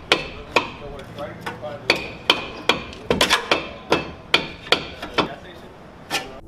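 Hammer blows on a car's brake rotor to knock it off the hub: about fifteen sharp metal-on-metal strikes at an uneven pace, each ringing briefly, with a quick run of blows around the middle.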